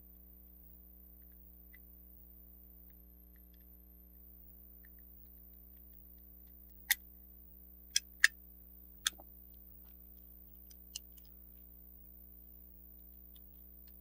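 Several sharp, separate clicks of hard plastic parts knocking and snapping together as the grey plastic housing of a Radio Shack Armatron arm is fitted back over its gear train, most of them in a cluster a little past the middle, over a faint steady hum.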